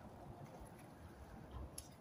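Near silence: faint outdoor background rumble with a few soft ticks, one a little clearer near the end.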